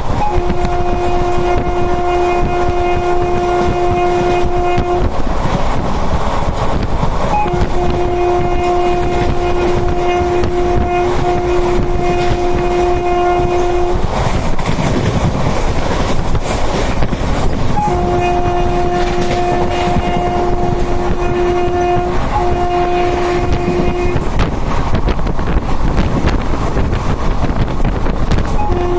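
Indian Railways train horn sounding three long steady blasts of about five to six seconds each, with a fourth starting near the end. Under the horn is the steady rumble and wind noise of the moving train.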